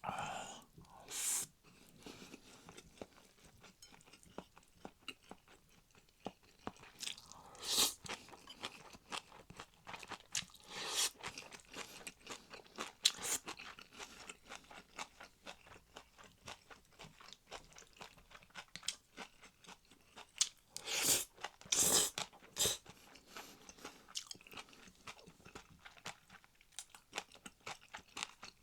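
A person chewing food with many small, quick crunches, and a few louder, sharper mouth or eating sounds scattered through.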